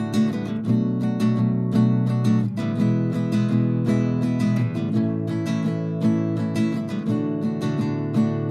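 Acoustic guitar music: chords strummed steadily in a regular rhythm.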